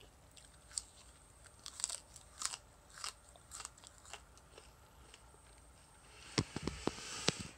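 A person biting and chewing a raw hibiscus flower: faint, soft crunching and wet mouth clicks, scattered at first, with a louder run of clicks near the end.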